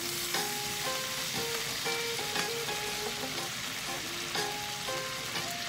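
Marinated beef strips sizzling in a hot frying pan as they brown, a steady frying hiss. Light background music plays over it.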